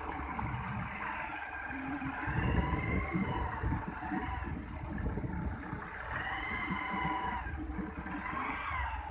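Motorbike engine running while riding along a dirt road, its pitch slowly rising and falling, over an irregular low rumble.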